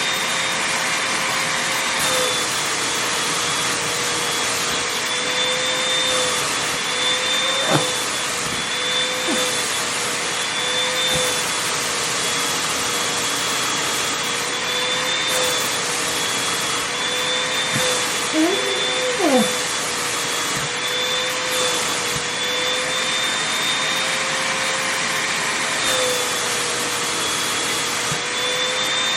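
Vacuum cleaner running steadily over fabric, a constant rushing noise with a high whine that wavers slightly in pitch. A brief click about eight seconds in, and a couple of short squeaky pitch slides about two-thirds of the way through.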